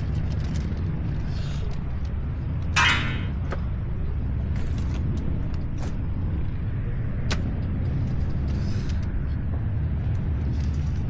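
Strong wind buffeting the microphone: a steady low rumble, with a short burst of noise about three seconds in and a few light clicks.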